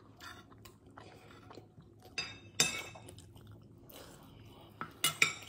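Chewing mouthfuls of biryani, with a steel spoon scraping and clinking against the plate: sharp clinks about two and a half seconds in and again near the end.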